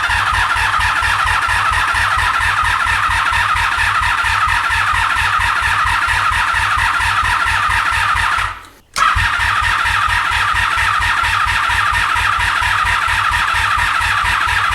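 1983 Honda Magna V45's electric starter cranking the V4 engine in two long bursts, with a short break about eight and a half seconds in; the engine turns over with an even rapid beat but does not catch, because the fuel petcock was left turned off.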